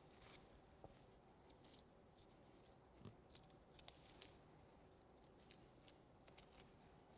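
Near silence, with a few faint soft ticks and scrapes, mostly a bit after the first second and again around three to four seconds in, from a boning knife slicing meat away from beef rib bones.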